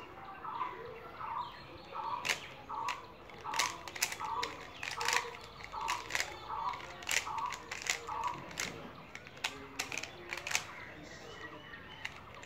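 Square-1 puzzle clicking irregularly as its layers are turned and sliced by hand. Behind it a bird calls over and over, about twice a second, and stops about eight seconds in.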